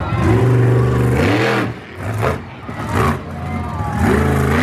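Monster truck's supercharged V8 revving hard, backing off sharply, blipping twice, then climbing again and holding high revs near the end.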